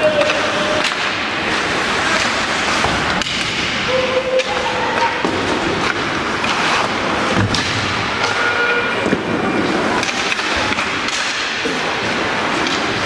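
Rink noise of an ice hockey game: skates scraping the ice and repeated knocks and thuds of puck, sticks and bodies against the boards, with a few short shouts.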